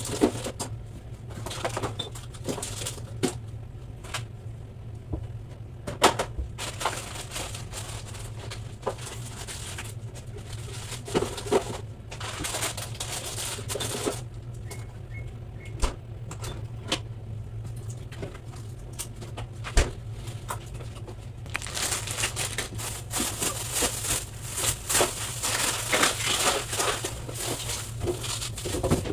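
Household items being handled during refrigerator cleaning: scattered knocks, clicks and plastic crinkling, over a steady low hum. From about twenty-two seconds in, a denser, louder rustling hiss takes over, as of scrubbing or wiping.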